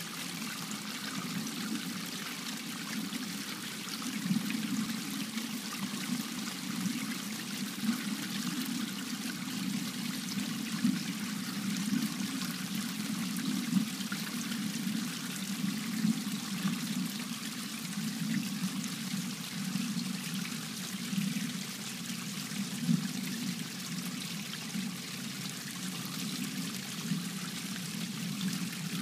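Garden pond fountain splashing and trickling steadily into the pond water.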